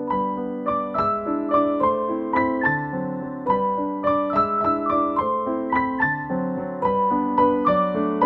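Background keyboard music: a piano-like melody of struck notes over held lower chords.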